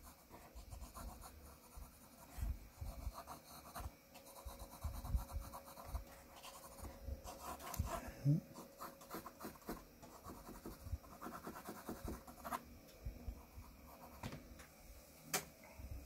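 Graphite pencil scratching on drawing paper in many short, quick, irregular strokes as lines are hatched in. The sound is faint.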